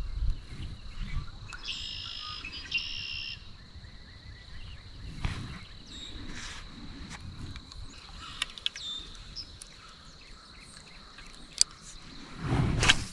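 Outdoor pond ambience: a steady high-pitched insect drone with birds chirping, a few small clicks, and a brief louder noise near the end.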